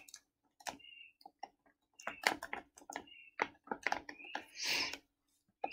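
Faint, irregular clicking of keys being pressed, as if a calculation is being keyed in, with a short soft hiss near the end.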